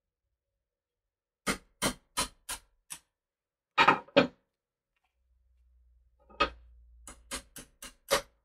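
A series of short, sharp clicks or knocks in irregular groups: five quick ones, then two heavier ones, then half a dozen more over a faint low hum that comes in about halfway.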